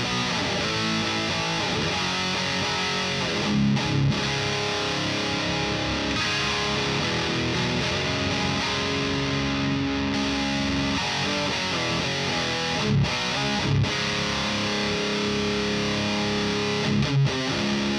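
Electric guitar played through a Fortin Hexdrive overdrive pedal, sounding distorted, with held notes and chords and a few short, louder stabbed hits.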